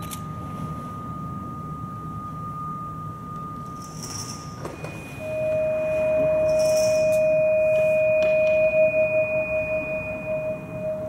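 Electronic music of pure, held sine-like tones over a faint low drone. A high steady tone gives way about halfway through to a louder, lower one with a faint high tone above it. The lower tone begins to waver near the end.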